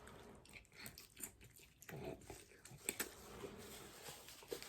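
Soft chewing and mouth sounds of a person eating a mouthful of pho noodles and beef, with scattered faint wet clicks.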